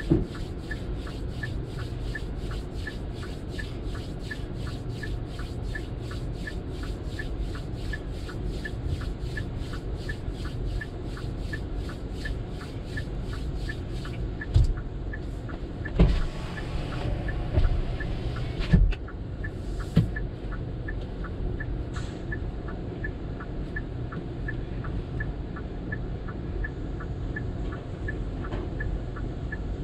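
Car wash sounds heard from inside a waiting car: a steady low rumble with a faint regular ticking about twice a second. Around the middle come a few sharp knocks and about two seconds of spraying hiss.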